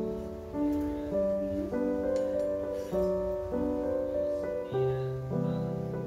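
Background piano music: a gentle solo piano melody over held chords, the notes changing about every half second.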